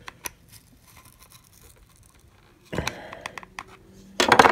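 Knife blade and plastic power-bank case scraping and clicking as a swollen lithium-ion battery is pried off the double-sided tape and glue holding it in. There are a few sharp clicks, then a scraping spell partway through, and a short, louder burst of scraping just before the end.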